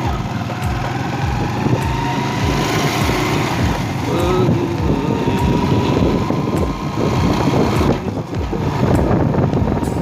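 Wind buffeting the microphone of a moving motorcycle over the steady running of its engine, with a thin whine that rises slightly in pitch over the first few seconds.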